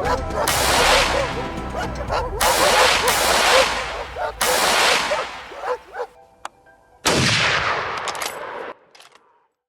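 Four loud bangs, each trailing off in a long fading echo, with wavering yelps between them. The sound cuts off shortly before the end.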